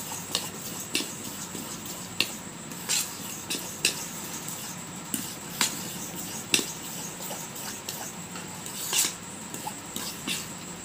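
Thick wheat flour and jaggery batter being mixed by hand in a steel bowl, giving short wet slaps and squelches at an irregular pace.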